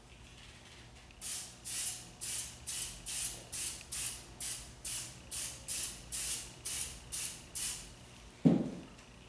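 Finger-pump spray bottle misting liquid onto a piece of leather: about fifteen short, even sprays, roughly two a second. A single loud thump follows near the end.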